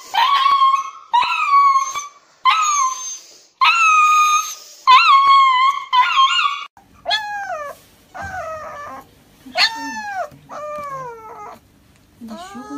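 A husky howling and crying in long, drawn-out calls in distress at being held down for an injection. About seven seconds in, the calls change to a quicker run of shorter cries that each rise and fall, about two a second.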